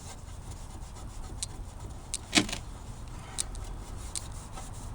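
Terry cloth with baking soda paste rubbing back and forth over a plastic turn signal lens, with a few short clicks and one louder knock about halfway through.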